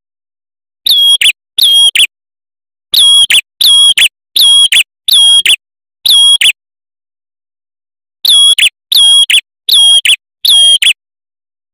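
Male ashy tailorbird calling: loud, high, sharp notes given one after another about every half-second, a run of seven, a pause of about a second and a half, then a run of five more. This is a repeated lure recording used to draw in tailorbirds.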